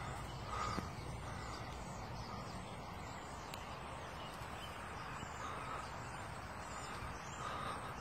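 A bird calling three times, short harsh calls a few seconds apart, over a steady low background rumble.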